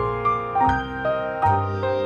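Instrumental music led by piano, with notes struck about twice a second over low bass notes.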